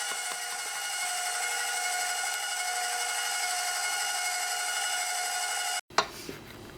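Electric mixer running steadily with an even whine as it beats cake batter, cutting off suddenly near the end, followed by a brief clink.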